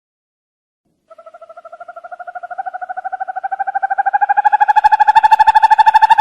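An owl's trilled call: a rapid run of notes, about ten a second, starting about a second in, rising slowly in pitch and growing steadily louder.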